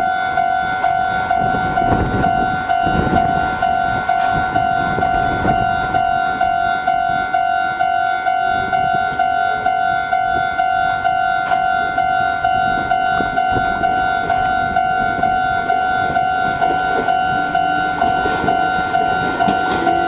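Japanese level-crossing alarm bell ringing steadily, a two-tone electronic ding about twice a second. Under it a Meitetsu 6000 series electric train passes over the crossing, its rumble and wheel clicks strongest in the first several seconds.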